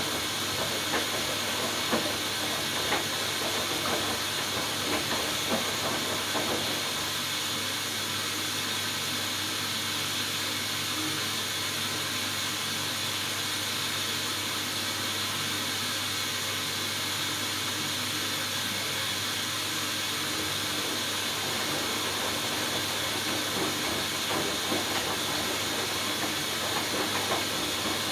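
Hoover Dynamic Next front-loading washing machine in its final rinse: a steady hissing rush of water and the turning drum, with scattered light knocks for the first few seconds and again near the end.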